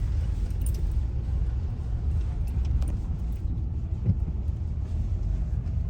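Steady low rumble of a car driving on a road, heard from inside the car, with a brief thump about four seconds in.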